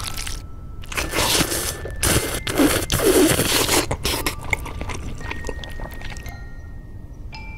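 A person slurping noodles: a long, noisy slurp of about three seconds, then quieter chewing sounds.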